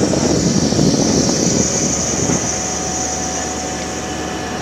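A fishing trawler's deck machinery and engine running steadily while the net is hauled in on the roller drum: a dense mechanical drone with a high hiss. It eases slightly after about two seconds, when a faint steady whine comes in.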